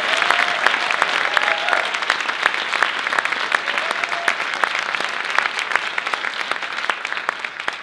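Audience applauding, the clapping slowly dying down toward the end.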